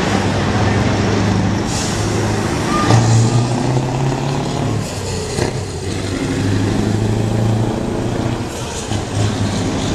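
Scania 3-series truck's V8 engine running through open exhaust pipes as it drives slowly past, revved briefly about three seconds in. Short air-brake hisses come about two seconds in and again near the end.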